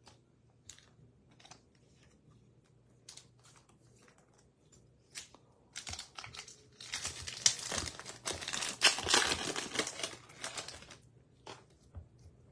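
A foil trading-card pack being torn open and its wrapper crinkled for about five seconds, starting around six seconds in. Before it come a few light clicks and taps of cards being handled.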